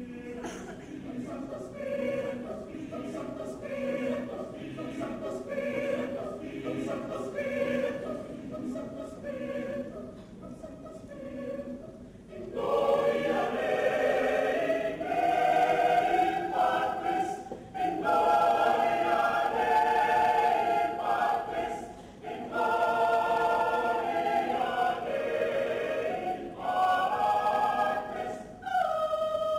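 Mixed choir of men and women singing. It begins with short, regularly pulsing chords, and about twelve seconds in it swells into a louder, fuller passage of held chords.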